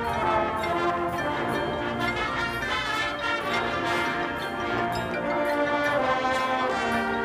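High school concert band playing, with brass prominent among sustained held chords.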